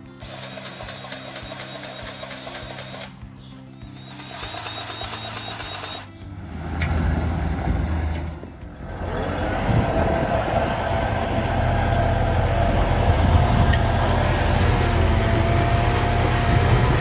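Farm tractor engine running steadily with a low rumble and a steady whine, loud from about ten seconds in, after a few short clips that cut in and out.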